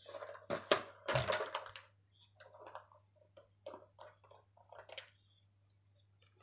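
A boxer dog chewing and pawing at a toy, which crunches and crackles in irregular bursts. The bursts are loudest and densest in the first two seconds, then come as shorter scattered crackles.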